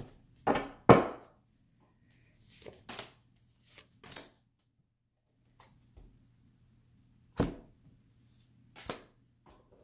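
A deck of tarot cards being handled on a wooden table: a handful of separate taps and knocks of the cards against the wood, the loudest about a second in.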